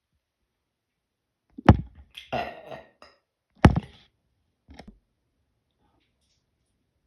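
A person burping: two sharp, loud burps about two seconds apart, with a longer, rougher throat sound between them and a small one about a second after the second burp.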